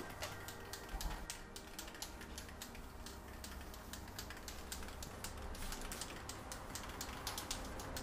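Aerosol spray-paint can being shaken, its mixing ball rattling inside in a rapid, irregular run of clicks.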